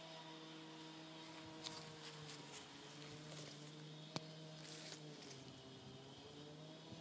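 Faint low, steady hum whose pitch wavers slowly, with a few soft rustles and one sharp click about four seconds in.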